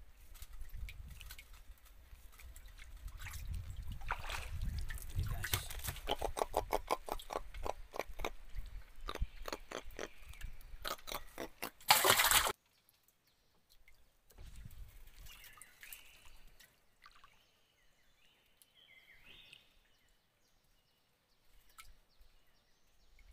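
Water sloshing and trickling around a small wooden boat, with a rapid run of clicks through the first half. A loud, short rushing burst comes about twelve seconds in, after which it is much quieter.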